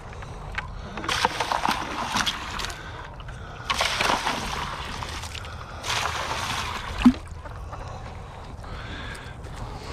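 Water poured out in three separate pours, splashing into livestock pans, followed by a single sharp knock about seven seconds in.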